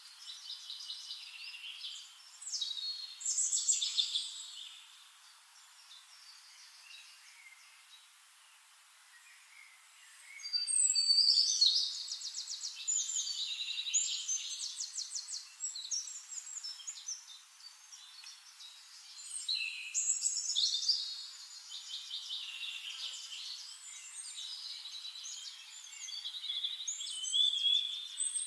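Birds singing: bursts of rapid trills and chirps a few seconds long, with quieter gaps between.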